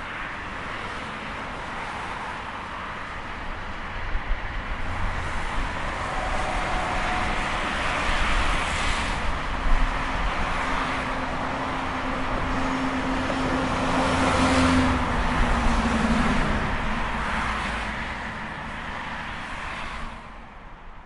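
Highway traffic: a steady wash of tyre and engine noise, with several vehicles passing close by and swelling louder before fading. A low, steady engine hum runs through the middle, and the whole sound fades out near the end.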